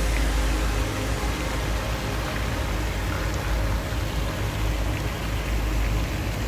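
Fountain jets splashing into a pool: a steady hiss of falling water, with a low rumble underneath.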